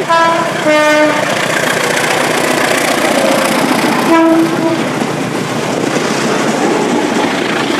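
Indonesian train horn giving short blasts, the semboyan 35 horn signal: one ending just after the start, another about a second in, a third about four seconds in. Between them comes the steady rushing and rail clatter of the moving train.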